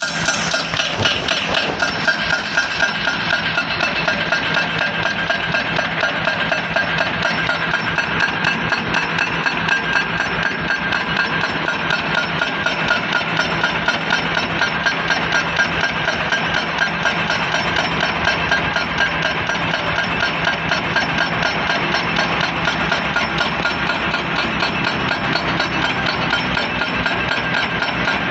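Volvo excavator working, with steady machine noise, a fast, even clatter and a steady high whine throughout.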